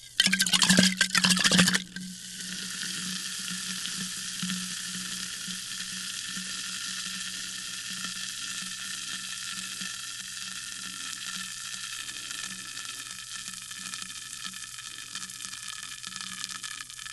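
Sparkling water fizzing, a fine steady crackle of bursting bubbles. Near the start comes a louder rush of about a second and a half before the fizz settles.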